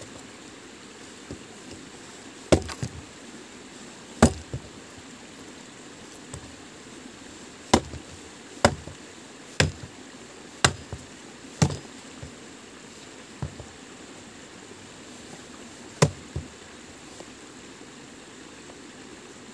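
Wood being chopped or struck by hand: about eight sharp blows at uneven intervals, with a run of five about a second apart in the middle, over a steady background hiss.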